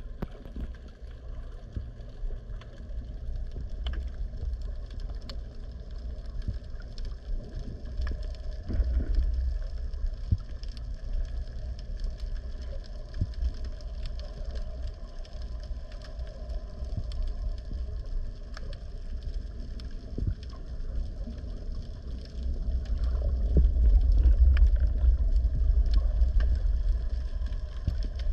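Underwater sound picked up by a camera in a waterproof housing: a muffled low rumble of water moving past, with scattered small clicks. The rumble swells a few seconds in and grows louder near the end.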